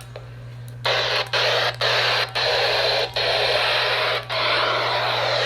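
Weather radio receiver hissing with static after the broadcast, over a steady low hum. The static is faint at first, jumps up about a second in, and cuts out briefly several times.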